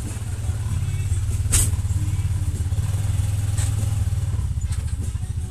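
Small engine running steadily at low speed, a fast low pulsing hum, with a sharp knock about one and a half seconds in and a lighter clank a couple of seconds later.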